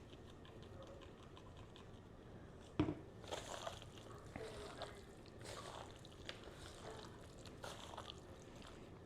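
Faint wet handling sounds: a single sharp knock a little under three seconds in, then scattered light splashes and rustles.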